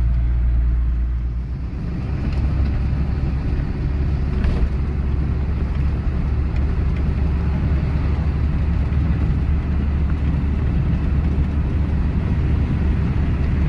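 Hino 7D truck's diesel engine running at road speed with tyre and road noise, a steady low drone that shifts slightly about a second and a half in.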